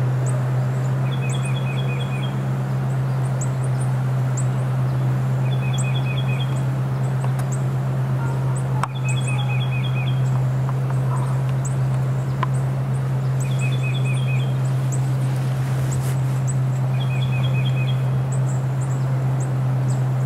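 Steady low buzzing hum of a honeybee colony at an open hive. Over it, a bird repeats a short trilled phrase about every four seconds, with scattered high chirps.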